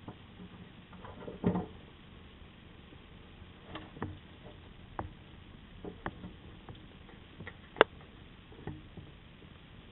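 Bearded dragon at a plastic food bowl: scattered light clicks and taps of its jaws and claws. There is a dull thump about one and a half seconds in, and a sharp click near the end.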